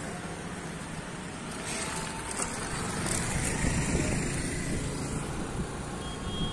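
Road traffic: motor scooters and motorcycles passing close by on a rough road, engines running over the general hum of other vehicles, louder for a while about three to four seconds in.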